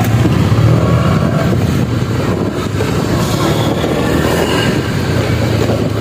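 Honda Click 125i scooter's single-cylinder engine running steadily at cruising speed, mixed with road and rushing-air noise.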